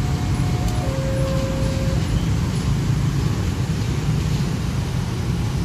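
Dense motorcycle and car traffic driving over a railway level crossing, a steady engine drone. For the first two seconds the crossing's electronic warning signal sounds over it, alternating a higher and a lower tone about a second each, then it stops.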